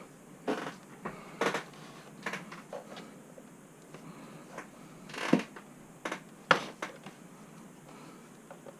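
Plastic snap-fit clips of an Asus X551CA laptop's case clicking loose one after another as a pry tool is run along the seam: about seven sharp, irregular clicks, the loudest about five seconds in.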